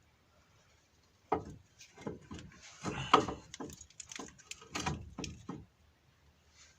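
Renault Logan front brake caliper being pulled off its bracket by hand: a series of metal clunks and scrapes, the loudest about three seconds in.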